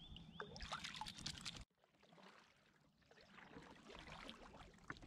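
Water splashing and trickling beside a kayak as a smallmouth bass is released over the side; after a sudden drop, quieter water sounds of a kayak paddle in calm shallow water.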